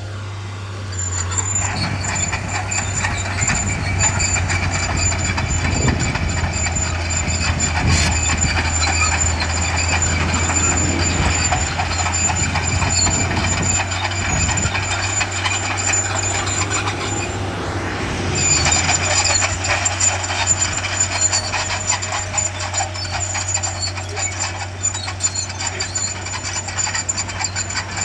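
Diesel engine of heavy earthmoving machinery running and working, a steady low drone with a thin high whine over most of it.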